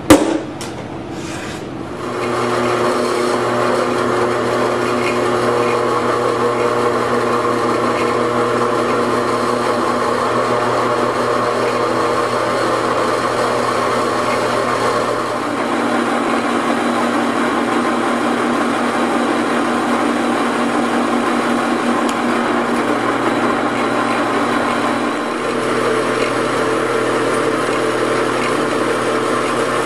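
A hammer strikes a centre punch on an aluminium plate once, sharply, followed by two lighter taps. About two seconds in, a benchtop drill press starts and runs steadily while it drills the plate; its tone changes about halfway through and again near the end.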